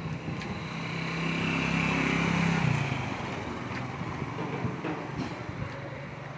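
A motorcycle-sidecar tricycle's engine passing close by: a steady hum that grows louder to about two and a half seconds in, then drops in pitch and fades as it goes away.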